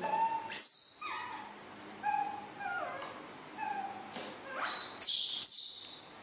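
Young macaque crying: a string of short, falling cries broken by a few shrill, high squeals.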